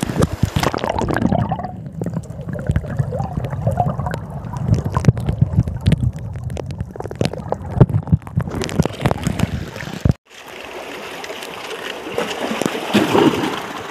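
Seawater sloshing and gurgling around a phone held underwater, with many small knocks and bubbling. About ten seconds in it changes abruptly to a steadier hiss of water washing over the rocks.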